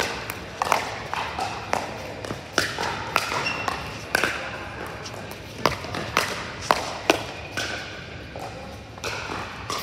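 Pickleball paddles striking a plastic pickleball during rallies: sharp pops at irregular intervals, some close and loud, others fainter from neighbouring courts, over the hum of a large indoor sports hall.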